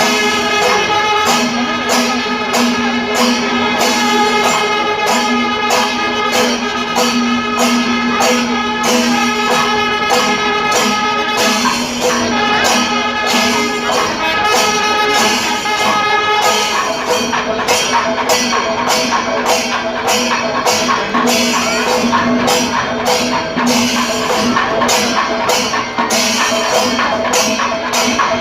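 Music: held melody notes over a steady jingling percussion beat.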